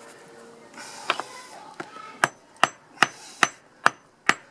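Hammer blows on a red-hot steel bar laid on a steel block anvil, forging a bodkin arrowhead: a couple of lighter clinks as the bar is set down, then about two seconds in a steady run of ringing strikes, about two and a half a second.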